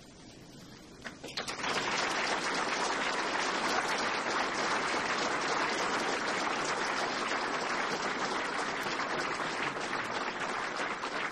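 Large crowd applauding: a dense, sustained clapping that breaks out about a second and a half in, just after a speech ends.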